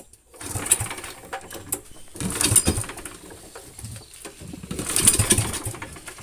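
Three pull-start attempts on a small boat engine: each pull of the recoil cord cranks the engine in a short whirring surge, and it does not catch.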